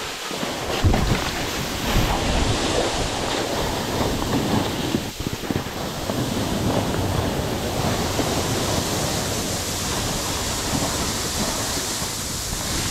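Snowboard side-slipping down a steep couloir, its edge scraping through slushy snow in a steady hissing rush, with wind noise on the microphone.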